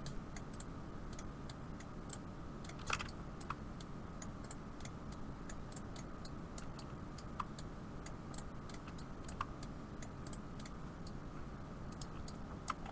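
Faint, irregular clicking of a computer mouse and keyboard, with one louder click about three seconds in, over a steady low hum.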